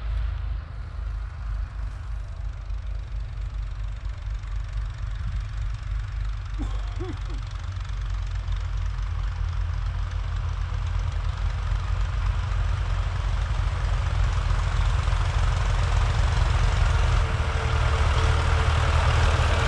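Vintage tractor engines running as a convoy approaches along the road: a steady low engine rumble that grows gradually louder as the tractors draw near.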